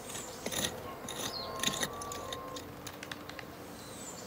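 Small metal hand trowel scraping and clicking through soil and small stones, with a busy run of scrapes in the first couple of seconds and a few scattered clicks after.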